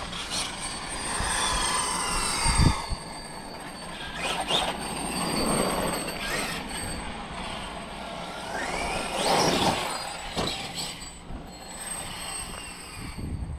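Losi 5ive TE 3.0 1/5-scale electric 4WD RC truck being driven. Its motor and drivetrain whine rises and falls with the throttle, with several short rushes of tyre noise.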